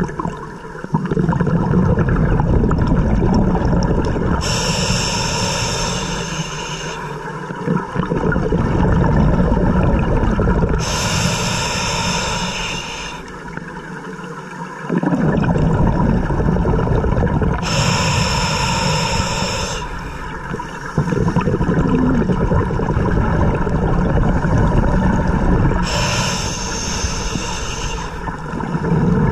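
Scuba diver breathing through a regulator underwater: a hiss on each inhale, four times, each followed by a low rumble of exhaled bubbles, about one breath every six or seven seconds.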